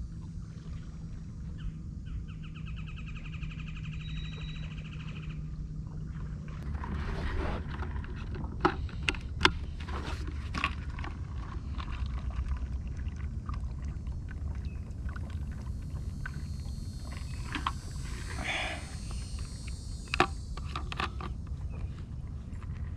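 Kayak paddling: water splashing and dripping from the paddle blades, with sharp knocks now and then, over a low steady rumble. A brief high buzzing trill sounds a few seconds in.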